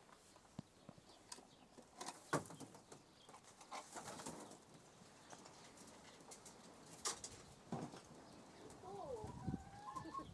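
Pigeons moving about, with scattered wing flaps, rustles and clicks, and a few short calls near the end.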